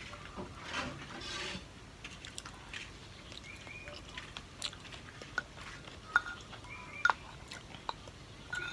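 Close-miked eating sounds: a person chewing, with scattered sharp clicks of utensils against dishes.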